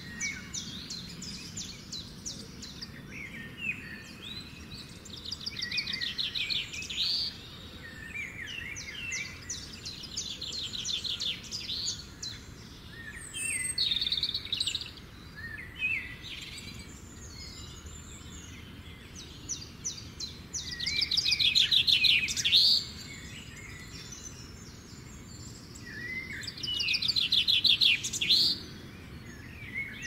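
Small songbirds singing in rapid high trills and chirps, each phrase a second or two long, with the loudest phrases about two-thirds of the way through and near the end, over faint steady background noise.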